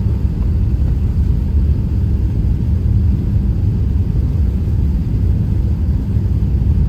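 Airbus A380-800 cabin noise: a steady, even low rumble of engines and airflow heard inside the cabin.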